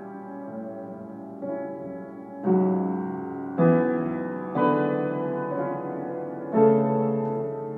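Solo piano played slowly: chords struck about once a second, each ringing on and fading before the next, with one longer held chord in the middle.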